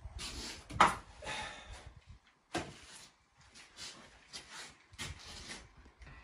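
Work gloves being pulled off and rubber gloves handled, in a series of short rustles and rubs. A sharp knock about a second in is the loudest sound, with a softer one near three seconds.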